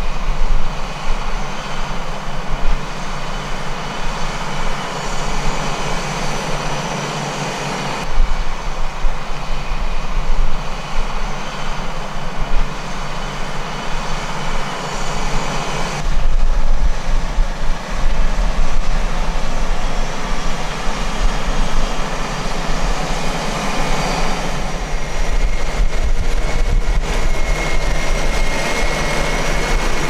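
John Deere 8370R tractor's engine running steadily under load while pulling a Claydon Hybrid 6 m seed drill through the soil. The sound shifts abruptly a few times.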